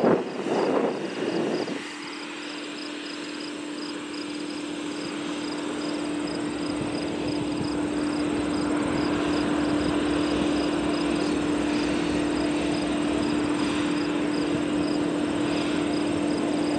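Union Pacific diesel locomotive approaching: a steady low drone that grows gradually louder, under the pulsing high buzz of insects. A loud gusty noise fills the first two seconds and ends abruptly.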